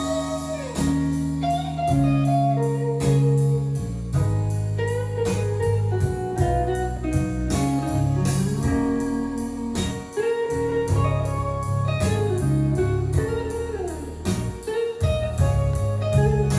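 Recorded music played back through a Marantz Model 1040 amplifier and loudspeaker: a melody that bends and slides between notes over a steady bass line, with a regular beat.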